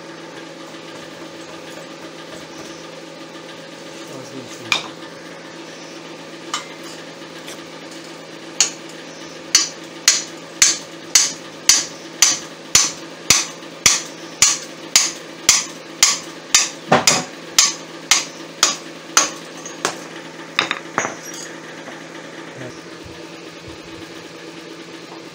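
Hammer blows on a steel pipe used as a drift to drive a V-belt pulley down onto a motor shaft: a couple of single sharp metallic strikes, then a run of about twenty, roughly two a second, and a few last taps. A steady low hum lies underneath throughout.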